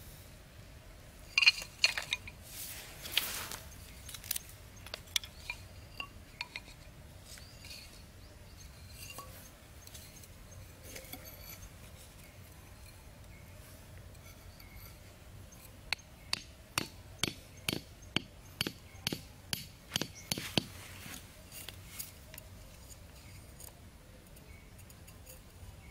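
Hollow bamboo sticks clicking and knocking together as they are handled, loudest about a second and a half in, then a run of about a dozen sharp knocks, two or three a second, as bamboo pieces are struck while the trap frame is set up.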